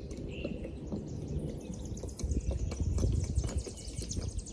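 Outdoor ambience dominated by a low wind rumble on the microphone, with a bird's short chirp about half a second in and a fast, thin high ticking running through most of it.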